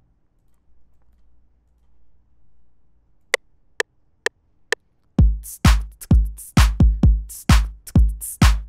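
Four metronome count-in clicks about half a second apart from FL Studio's recording precount, then an electronic drum loop starts about five seconds in: a four-on-the-floor kick on every beat, about two a second, with clap hits on top.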